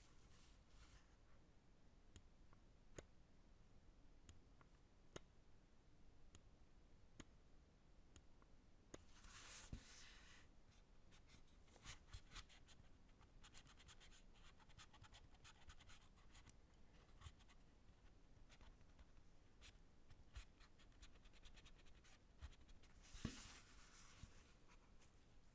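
Lamzu Maya X 8K gaming mouse being tested: single button clicks about once a second, then fast runs of scroll-wheel ticks with two short scraping bursts.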